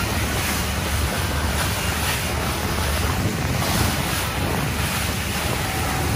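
Water rushing and splashing along the side of a moving boat through choppy wake, with wind buffeting the microphone.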